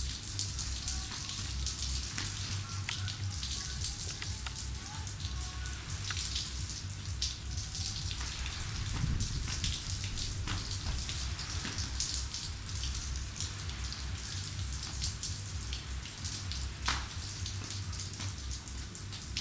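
Rain falling, with many scattered sharp drop ticks over a steady hiss and a low rumble underneath.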